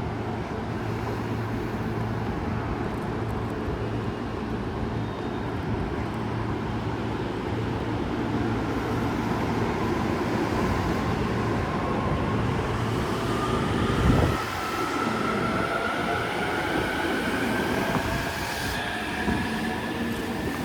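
Electric commuter train at a station platform, its running noise steady and then joined by a motor whine that climbs slowly in pitch as the train accelerates away. There is one loud thump about fourteen seconds in.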